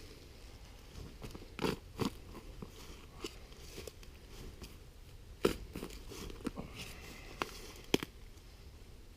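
A digging tool crunching into soil in a series of separate strikes, the sharpest about five and a half seconds in and again near the end, as a hole is dug for a metal-detector target.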